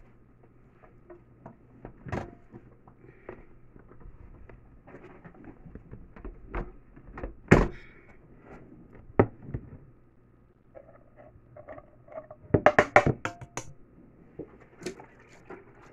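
Kitchenware handled on a table: scattered knocks and clinks, with a sharp knock about seven and a half seconds in. About twelve seconds in comes a quick run of roughly eight taps as a spoon scrapes and taps inside a saucepan, spooning the pomade out into a plastic container.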